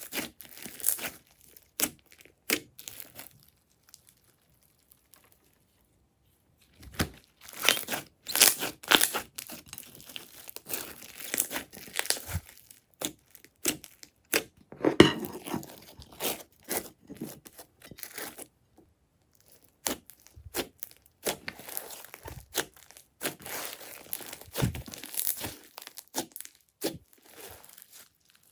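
Crunchy slime being squeezed and pressed by hand, giving runs of sharp crackles and crunches. There is a pause of about three seconds near the start and a shorter one about two-thirds of the way through.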